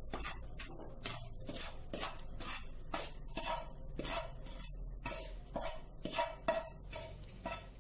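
Wooden spatula scraping roasted rava (semolina) out of a nonstick frying pan into a ceramic bowl, in a run of short scraping strokes about twice a second.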